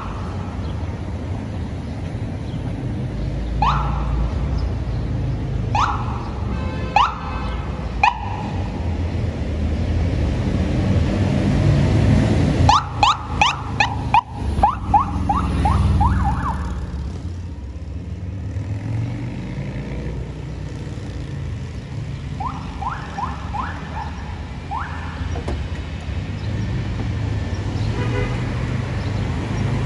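Police motorcycle sirens, two NYPD bikes responding through city traffic: single rising whoops every couple of seconds at first, then a fast run of rising yelps as they pass about thirteen seconds in, and more quick yelps further off near the end. A low rumble of traffic and engines runs underneath and is loudest as the bikes go by.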